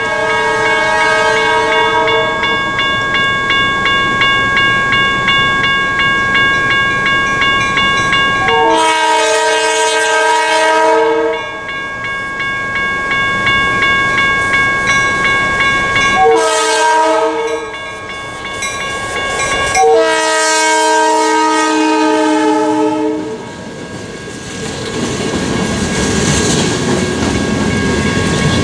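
A diesel locomotive's horn, the old cast Nathan P5 on a GP9, blows a grade-crossing pattern: a long blast, a short one, then a final long one. A crossing bell rings steadily underneath. Near the end, freight cars roll past with clickety-clack over the rails.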